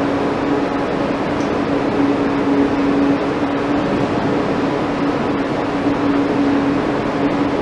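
Steady room tone of machinery hum: one constant low tone over an even hiss, with no knocks or voices.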